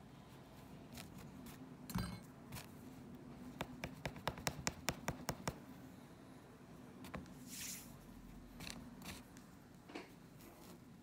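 Faint clicks and scrapes of hand reweaving on a rug's bare cotton warp threads: a metal needle or hook ticks against the taut warps, with a run of about ten quick ticks in the middle. A short hiss near the end as yarn is drawn through the weave.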